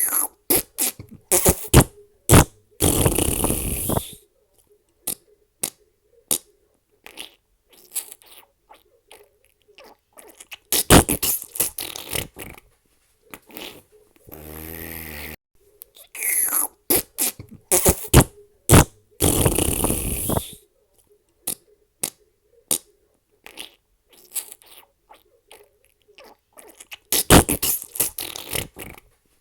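Fart sound effects in quick succession: clusters of short sputtering pops and a few longer raspy blasts. The same sequence repeats about every 15 seconds.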